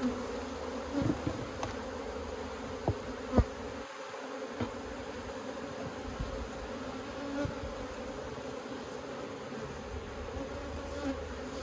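Honeybees buzzing around their hive: a steady, continuous hum, with a few faint clicks in the first few seconds.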